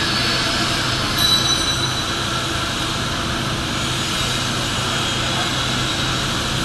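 Steady machinery drone of a fabrication workshop: a low hum under thin high whining tones, with a brief knock about a second in.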